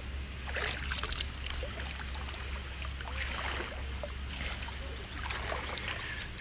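Water trickling and splashing down terraced thermal pools in uneven spurts, over a steady low hum.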